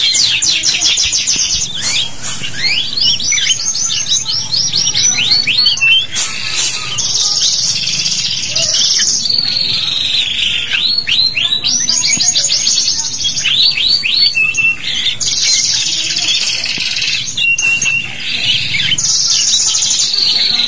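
Domestic canaries singing a long, unbroken song: fast rolling trills of repeated notes alternate with runs of quick sweeping chirps and a few short held whistles.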